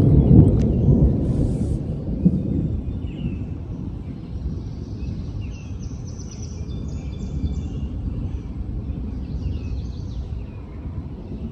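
Low rumble of thunder from an approaching storm, loudest at first and then easing off, with birds chirping faintly.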